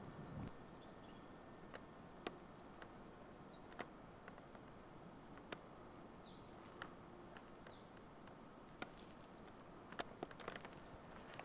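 Quiet outdoor ambience with faint, distant bird chirps in a few short bursts and scattered small clicks. A low rumble dies away in the first half second.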